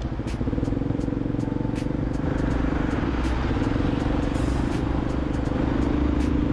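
Tractor-trailer truck's engine running steadily while driving, growing a little louder about two seconds in, with a few scattered sharp ticks.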